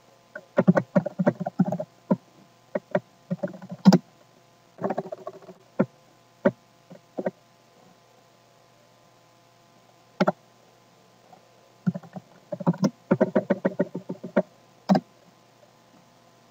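Computer keyboard typing: short runs of rapid key clicks with pauses between, a lone keystroke about ten seconds in, and a longer run a little later. A faint steady hum sits underneath.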